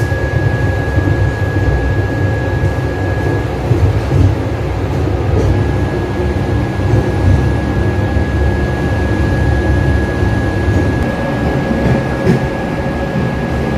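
Steady running rumble of a moving Vistadome passenger coach heard from inside, its wheels rolling along the track, with a thin, steady high tone over it.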